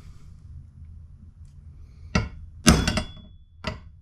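Sharp metal-on-metal knocks, as when a hammer taps the oil pump pickup tube of an LS engine to seat it. They start about halfway in: one strike, then a louder quick cluster with a brief ring, then one more near the end.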